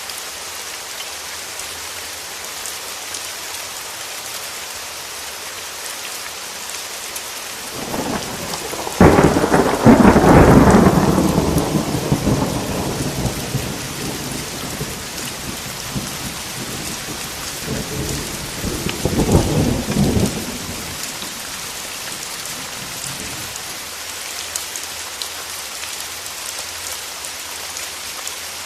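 Steady rain, with a loud crack of thunder about a third of the way in that rumbles away over several seconds, and a second, shorter roll of thunder about two-thirds of the way through.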